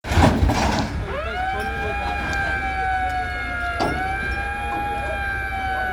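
A horn sounding one long, steady blast that starts about a second in, its pitch swooping up at the start and wavering slightly as it is held, after a short burst of noise.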